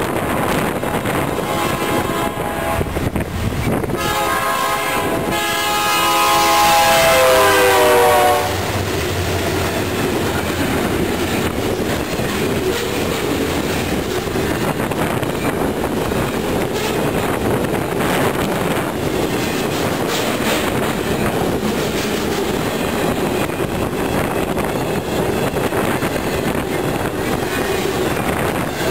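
BNSF freight locomotive sounding its multi-chime air horn in one long blast, briefly broken about 4 s in, getting louder and dropping slightly in pitch as the locomotive passes close. The horn cuts off about 8 s in, leaving the steady rumble and clickety-clack of the freight train's cars rolling past.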